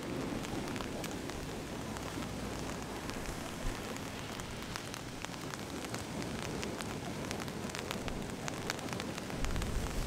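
Steady rain, with many individual drops ticking sharply on a surface. A low rumble comes in near the end.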